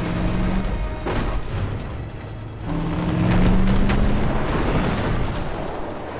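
Dramatic film score of sustained low notes, hit by a deep boom about a second in and swelling louder about two and a half seconds in.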